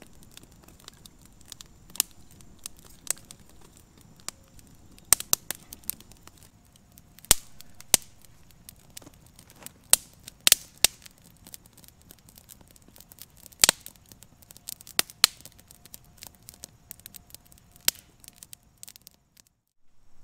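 Wood fire of thin split kindling crackling, with sharp irregular pops, several of them loud.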